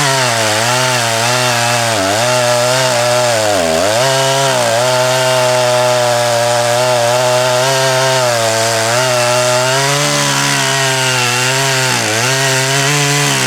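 Two-stroke chainsaw running at high revs while cutting dead red oak. Its engine pitch sags briefly a few times as the chain bites under load, then picks back up.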